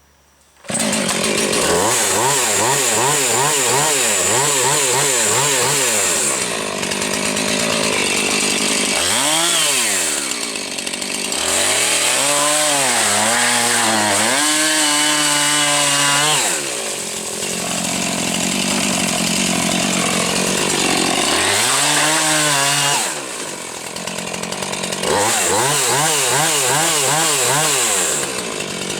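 Two-stroke chainsaw revved hard in long bursts as its bar is run through falling water, the engine pitch wavering up and down. It comes in loud about a second in and eases back to lower revs twice before opening up again.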